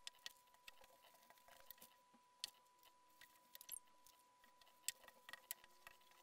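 Faint, sparse light ticks and paper rustles from paper templates being handled, rubbed with a glue stick and pressed flat onto a plywood sheet, over a faint steady high tone.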